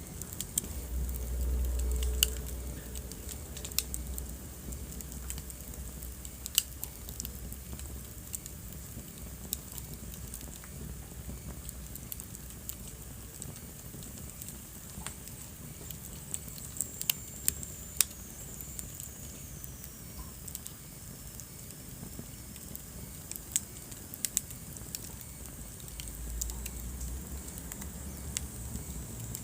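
Wood fire crackling in a fireplace, with scattered sharp pops and snaps over a low rumble of flames that swells near the start and again near the end. A faint high whistle falls in pitch about two-thirds of the way through.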